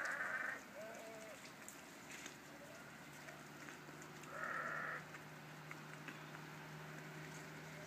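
A farm animal calling twice, short high calls about four seconds apart, the first right at the start. A steady low hum sets in about three seconds in.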